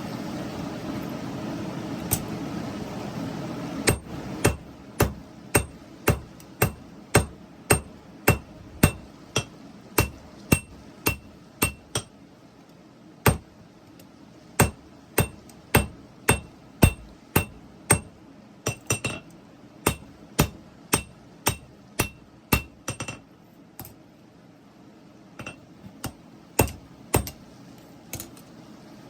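Hand hammer striking hot 5160 steel on an anvil, about two blows a second, each with a bright metallic ring, in runs broken by short pauses. It opens with a steady rushing noise that stops about four seconds in.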